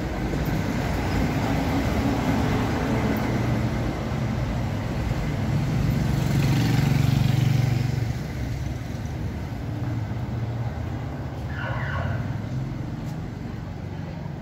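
A car passing close on the street, its engine and tyres swelling to loudest about halfway through and then fading, over a steady low traffic rumble.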